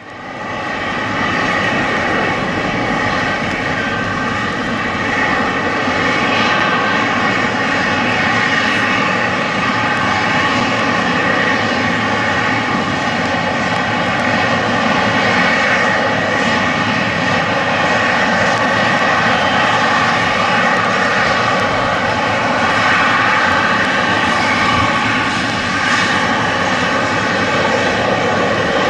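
Jet airliner engines running at taxi power: a steady rushing with a high whine made of several steady tones, from a Boeing 777-300 and a regional jet taxiing. The sound fades in over the first second.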